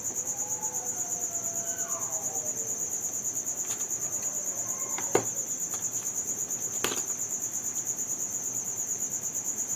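A cricket chirping steadily in a fast, even pulsing trill, with two sharp clicks a little past the middle.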